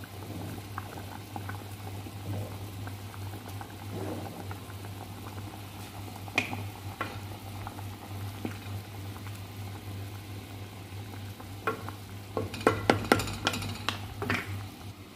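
Soup bubbling at a rolling boil in a pot, stirred with a wooden spoon, with small scattered clicks. Near the end comes a quick run of sharp knocks and clicks, the loudest sounds here.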